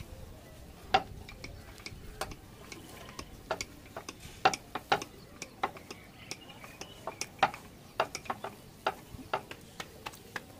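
Hands kneading a potato-and-chicken mixture in a stainless steel bowl: irregular sharp clicks and taps, one or two a second, as fingers knock against the metal bowl.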